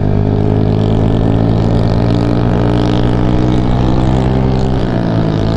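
Honda JAZZ50's 49 cc four-stroke single-cylinder engine running steadily while riding, with wind rushing over the microphone. About five seconds in the engine note drops briefly and climbs again.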